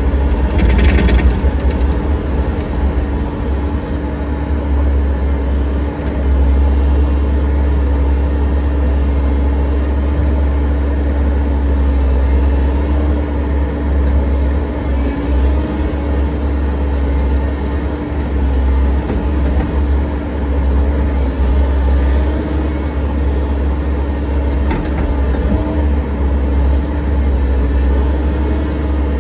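Excavator's diesel engine running steadily under work, a loud drone with a steady hum, and a short clatter about a second in.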